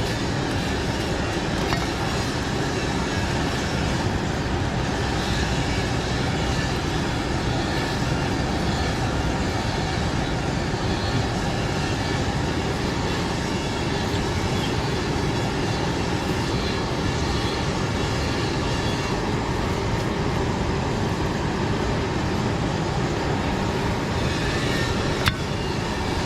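Steady, even roar of a forge's electric air blower feeding the charcoal fire, with one sharp click near the end.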